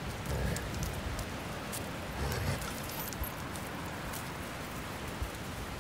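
Scattered light ticking and pattering of flat-coated retriever puppies' paws and claws on a tarmac path, over a steady low rumble.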